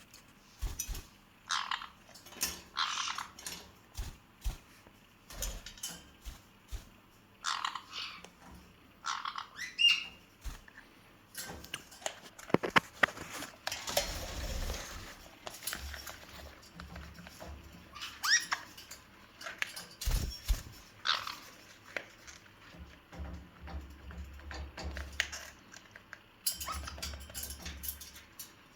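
Caique parrot giving short squawks and chirps again and again, about one a second, while playing with a rubber chicken toy, with clicks, knocks and rustling from the tussle.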